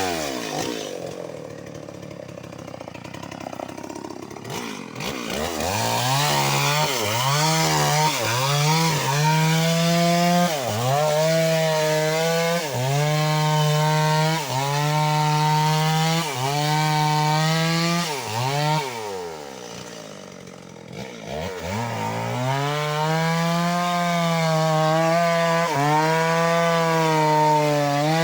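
Stihl MS 381 two-stroke chainsaw cutting into a mahogany trunk. It runs lower for the first few seconds, then goes to high revs with the engine note dipping and recovering about every second and a half. It eases off briefly past the middle, then runs high and steady.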